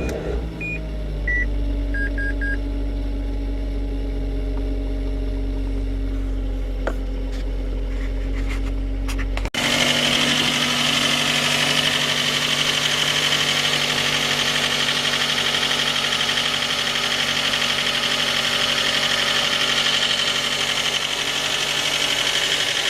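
Suzuki J20A 2.0 L four-cylinder engine idling just after a cold start, with a small knock that the owner traced to a scored crankshaft journal on cylinder 3. A few short beeps sound in the first couple of seconds. About ten seconds in the sound cuts abruptly to a louder, brighter engine noise that stays steady.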